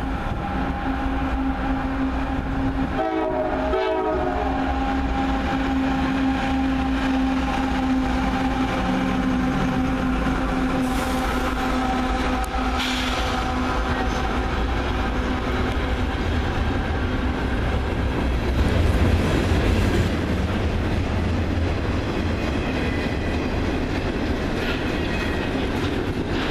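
A CSX freight train's GE diesel locomotives sound their horn in long blasts with a brief break about three seconds in, the horn dying away around ten seconds. The locomotives then pass close by, followed by double-stack container cars rolling past with a steady rumble and wheel clatter over the rail joints, swelling louder near the end.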